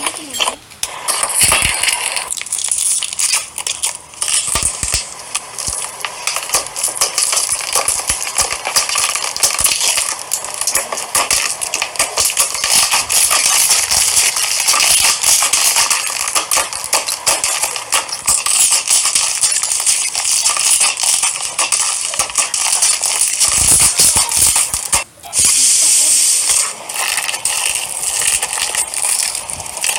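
Slime being squeezed and worked close to the microphone: a dense, continuous run of small crackles, clicks and pops, with a brief pause about 25 seconds in.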